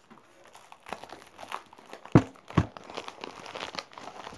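Clear plastic wrapping crinkling and tearing as it is pulled off a framed print, with two sharp knocks a little past halfway.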